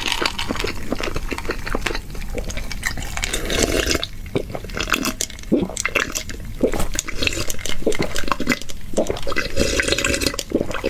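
A person gulping a cold drink from a glass pitcher: repeated swallows and liquid sloshing and gurgling in the glass.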